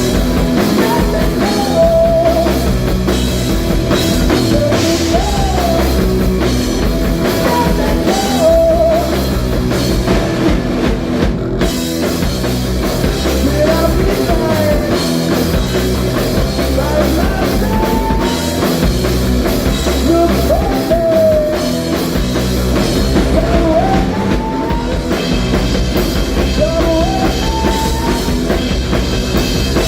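Live rock band playing, with a drum kit and singing; a melody line slides up between notes every few seconds.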